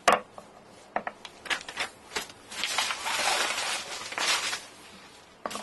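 Packaging being handled: a paper mailer envelope and a plastic zip bag rustling and crinkling, with a few short clicks and taps. The longest stretch of rustling comes in the middle.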